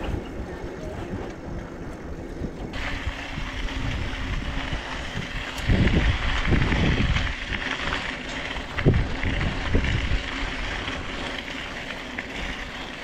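Wind rumbling on the microphone of a handlebar-mounted camera as a bicycle rolls along, with the hiss of tyres on a gravel trail. A few stronger gusts come about six and nine seconds in.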